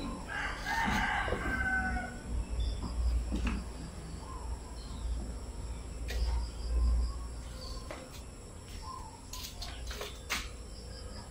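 A rooster crowing once near the start, the call lasting about two seconds, over a low rumble with a few faint knocks later on.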